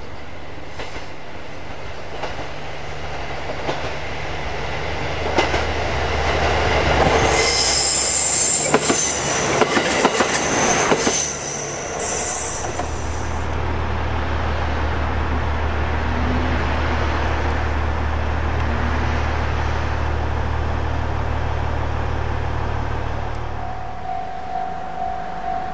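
JR East KiYa E195 series rail-carrying diesel train passing on a curve: a low diesel engine drone swells as it approaches, and the wheels squeal high and click over the rail joints as it goes by. The drone runs on steadily after it has passed, then fades near the end.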